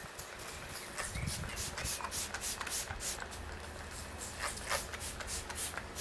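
2000-grit wet sandpaper on a hand sanding block rubbing back and forth over lubricated car paintwork, in quick, even strokes of about three or four a second.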